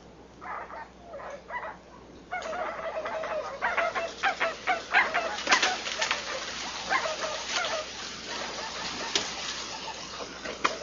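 White-browed guan (jacucaca) calling: a few soft calls, then about two seconds in a loud, dense run of harsh, cackling calls that keeps going.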